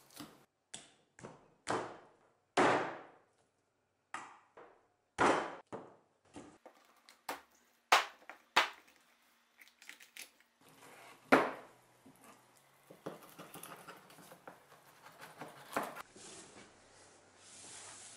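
A butcher's cleaver chopping a raw chicken apart on a wooden cutting board: about a dozen sharp, separate chops into the board in the first two-thirds, then softer knocks and handling as the pieces are moved.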